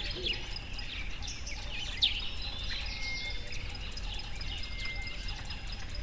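Many birds calling and chirping together over a steady low background noise, with one louder, downward-sweeping call about two seconds in.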